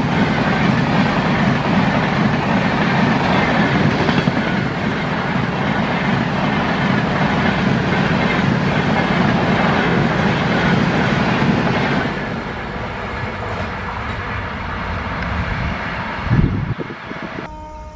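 Express train of LHB passenger coaches passing at speed close by: a dense rumble with the clatter of wheels on the rail joints. About twelve seconds in it drops to a quieter running sound as the train recedes, with a brief loud thump near the end and a faint distant train horn starting just before the end.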